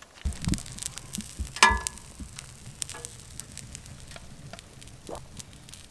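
Omelette sizzling in a cast iron skillet on a wood stove, a soft hiss dotted with small crackles and pops. A few dull knocks come in the first two seconds.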